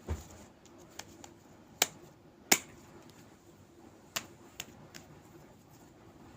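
A series of about eight irregular sharp clicks and taps, the two loudest close together about two seconds in, over a quiet background.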